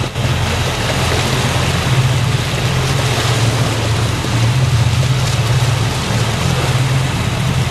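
A boat's motor running steadily underway, a low drone beneath the loud hiss of water rushing past the hull and wind on the microphone.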